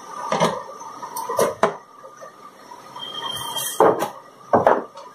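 Knocks and clunks of a tea and coffee vending machine's front door being unlatched and pulled open by hand: about six separate sharp knocks, the loudest about four seconds in and a close pair near the end.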